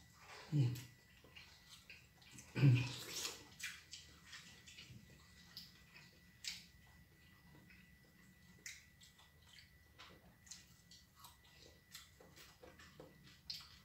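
Close-up eating sounds from people eating with their bare hands: scattered small wet clicks and smacks of lips and fingers as food is put in the mouth and fingers are licked. In the first three seconds there are two brief low voice sounds.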